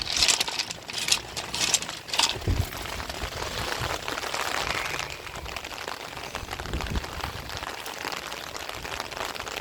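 Steady hiss of rain and running rainwater, with a few brief sharp noises in the first two seconds.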